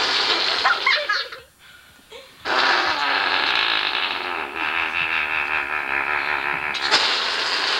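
A person blowing fart noises with the lips: a short raspberry, then after a brief pause one long, wobbling raspberry lasting several seconds.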